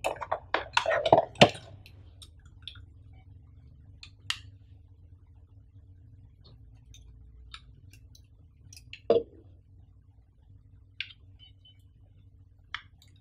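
Hands rustling and crinkling the packaging in an open cardboard box for about a second and a half. Then the hands handle a coiled power cord and AC adapter, making scattered light clicks and taps, with one duller knock about nine seconds in. A faint steady low hum runs underneath.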